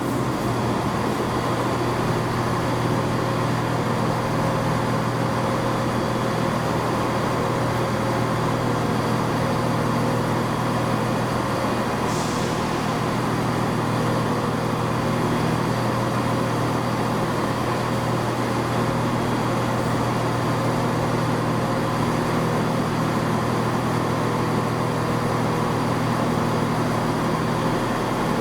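A steady engine drone, a low hum with several constant tones and no change in speed, like a vehicle idling; a brief faint hiss about twelve seconds in.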